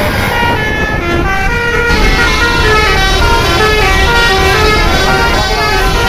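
Bus telolet horn on an Indonesian coach sounding a fast melodic run of short, shifting horn tones, over the low rumble of the bus's engine.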